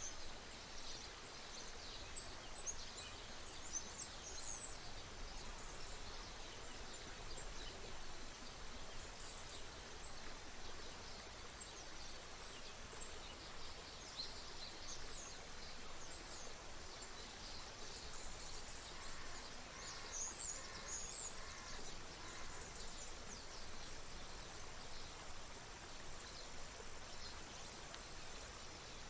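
A creek running steadily over rocks, with many small birds chirping high above it. About twenty seconds in, a run of repeated lower call notes, roughly two a second, lasts a few seconds.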